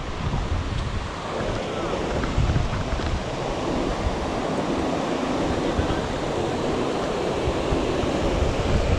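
Rushing water of a mountain stream, with wind gusting on the microphone; the rushing grows fuller about a second in.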